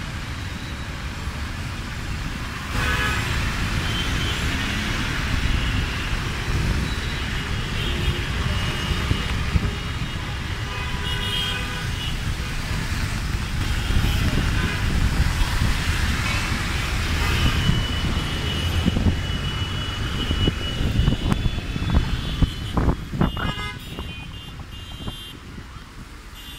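Congested road traffic in a jam on wet pavement: engines rumbling and tyres hissing, with vehicle horns honking again and again, some short beeps and some held blasts. A few sharp knocks come near the end.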